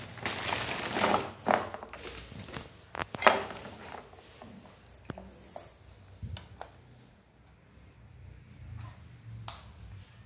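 Handling noises of a stainless steel kitchen press and its packaging: crinkling and rustling with many sharp clicks and taps during the first four seconds, then a few isolated clicks.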